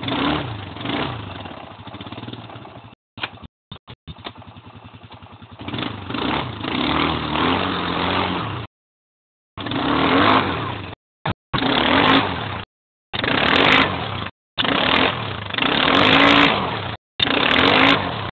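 ATV engine revving hard in repeated bursts as the quad churns through deep mud, its pitch rising and falling with the throttle. The sound cuts out completely several times in the second half.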